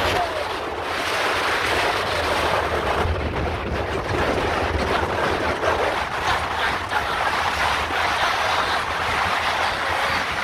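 Steady wind rushing over the microphone while riding in the back of a moving vehicle, with a low rumble of engine and road noise underneath.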